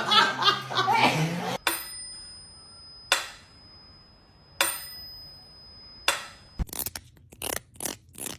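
A comb's teeth strummed four times, about one and a half seconds apart, each stroke leaving a thin, high ring, then a quicker run of strokes near the end. A short laugh or voice comes first.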